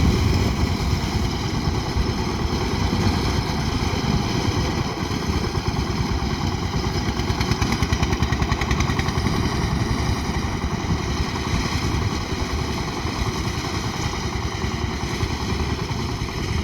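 Engine of a wheat-harvesting machine running steadily, with a constant high whine over the engine noise.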